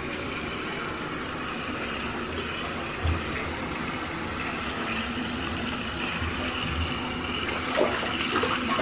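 Water running steadily in a hot bathtub, an even rushing noise, with a couple of soft bumps about three seconds in and near the end.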